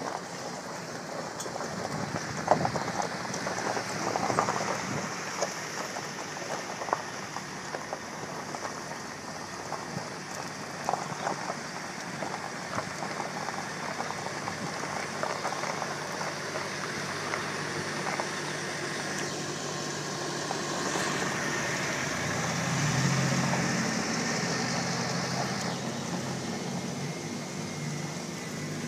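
Roadside traffic noise: a steady wash of passing vehicles with scattered light clicks and crackles. A low engine hum swells about three-quarters of the way through.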